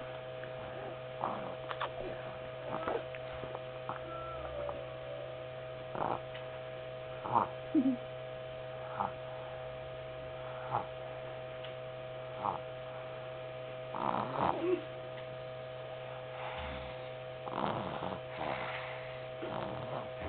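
Steady electrical hum, with brief soft sounds from a drowsy toddler every second or two: small clicks, breaths and a few faint little vocal sounds.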